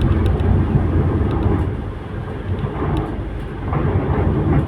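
Rain with a deep, steady rumble beneath it that eases off about two seconds in and builds again near the end.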